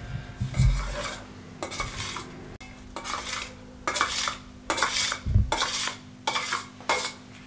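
Kitchen knife cutting set jelly in a stainless-steel plate: a series of short, irregular scrapes and taps of the blade on the metal.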